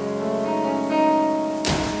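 Slow instrumental background music: single notes ring out and overlap one after another. A brief hissing rustle comes in near the end.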